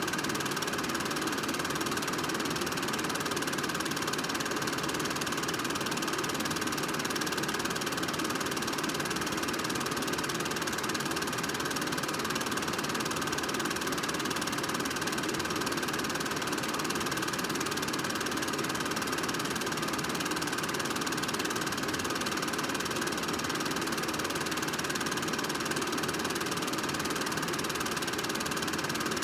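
Film projector running steadily: an unbroken mechanical whir from the motor and film transport, with a few steady tones over it.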